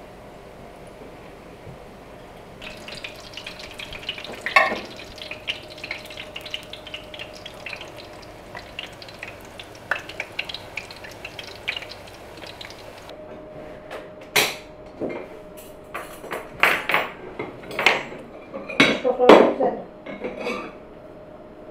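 Metal utensils and dishes clinking and scraping: a few seconds in, a steady run of small taps and scrapes begins, and in the second half come several loud, sharp clatters.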